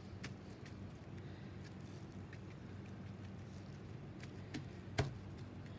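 Plastic wrap crinkling faintly as a hand presses and rubs it down onto wet watercolor paper, with scattered light ticks and one sharper tap near the end, over a steady low hum.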